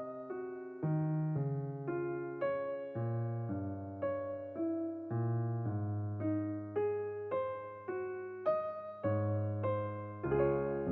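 Background music: a keyboard, in the manner of an electric piano, playing a gentle melody over chords, with notes struck about twice a second and each fading away.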